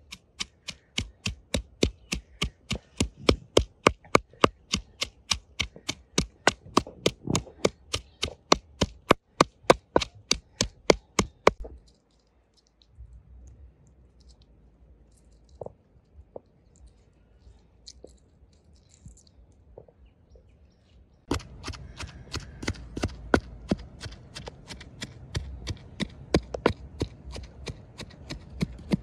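Wooden pestle pounding sliced onions in a wooden mortar, in quick, even knocks of about four a second that stop about twelve seconds in. After a quieter stretch with a few faint ticks, the pounding starts again about twenty-one seconds in, a little less evenly.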